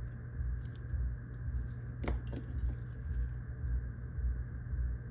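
Small metallic clicks and ticks of a Phillips screwdriver and tiny screws being worked out of an iPhone's internal plate and set down, with one sharp click about two seconds in, over a steady low hum.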